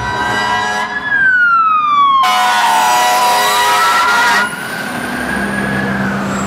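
Fire engine siren wailing: its pitch falls slowly, rises again and holds, then begins to drop near the end. A loud blast of the truck's air horn lasts about two seconds, starting about two seconds in.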